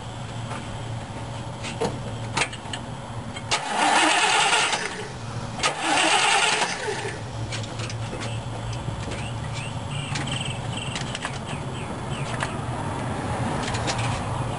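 Starter cranking a freshly rebuilt Chevrolet V8 over steadily without letting it fire, its coil wire disconnected, to pump oil through the engine and build oil pressure. Two louder rushing bursts of noise come about four and six seconds in.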